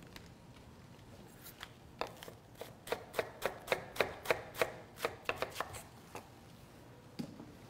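Chef's knife shredding iceberg lettuce on a wooden cutting board: a quick run of crisp cuts, about four a second, starting about two seconds in and stopping about two seconds before the end.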